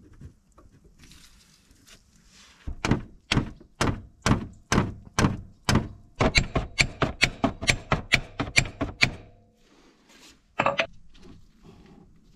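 Mallet tapping a new end cap into the nylon bushing at a Honda TRX 500 ATV's suspension arm pivot. It makes a run of sharp knocks, about two a second at first, then quickening to about five a second, with one more knock near the end.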